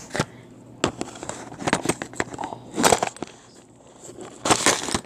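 Handling noise as a phone is positioned: scattered clicks and crackling, rustling bursts, loudest about three seconds in and again near the end.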